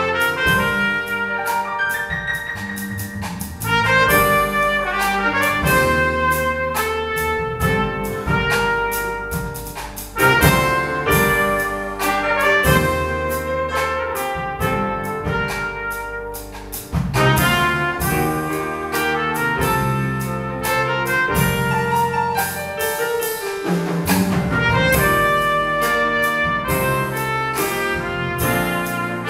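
A small jazz group playing live: a trumpet carries the melody over grand piano, electric bass guitar and a drum kit keeping a steady beat.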